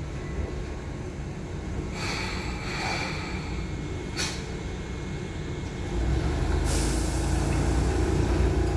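Enshu Railway 2000 series electric train rolling slowly into the platform and braking: a low rumble of wheels and running gear, with short hisses of brake air about two and four seconds in. The rumble grows louder from about six seconds on, joined by a steady hiss as it draws up to stop.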